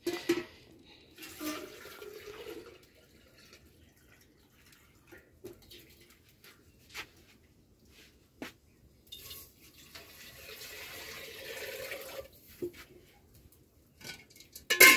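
Water being poured or splashed, with scattered small knocks. The longest run of water sound comes about two-thirds of the way through.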